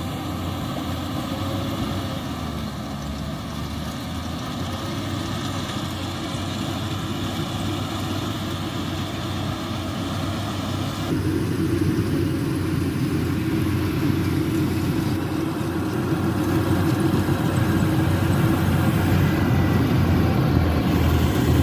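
Yanmar YH850 rice combine harvester's diesel engine running steadily. About halfway through the sound changes abruptly and grows louder, rising slowly toward the end.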